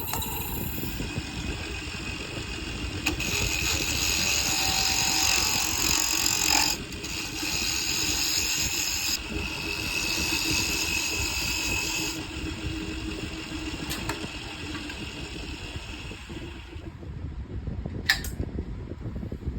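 Wood lathe running with a tool or abrasive working the spinning wood, giving a loud hissing scrape in several stretches that stop and start abruptly, over a steady low rumble. One sharp click near the end.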